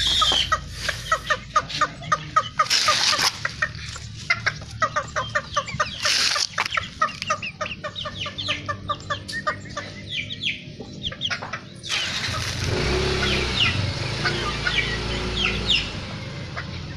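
Bantam chickens clucking, with a quick run of short clucks through the first part and short high calls near the end.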